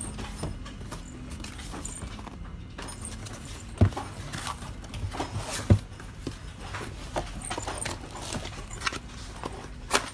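Irregular clicks and light knocks of hard objects being handled, over a faint low hum, with two sharper knocks about four and six seconds in.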